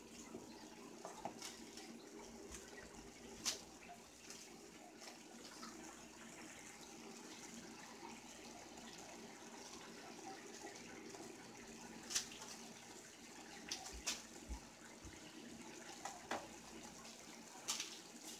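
Stir-fry sauce simmering in a cast-iron skillet, a faint steady bubbling hiss. A few sharp clicks and scrapes come from a spoon stirring against the pan.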